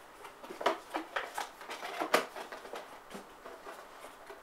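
Irregular handling noises: a quick run of light clicks and rustles, loudest about two seconds in, then a few scattered ticks.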